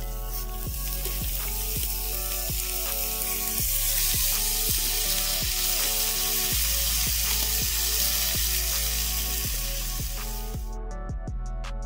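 Raw bacon sizzling as the strips go into a hot cast-iron skillet, growing louder a few seconds in and cutting off abruptly near the end.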